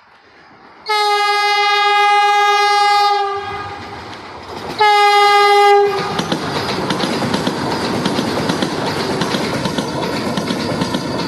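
Vande Bharat Express horn sounding two blasts, a long one of about two seconds and then a short one, as the train runs through the station. Then the train rushes past with a steady roar and rhythmic clickety-clack of wheels on the rail joints.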